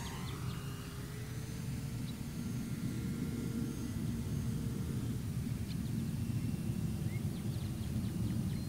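Electric motor and propeller of a 1.1 m foam RC Cessna 400 flying at a distance: a faint steady whine that fades out about halfway through, over a steady low rumble.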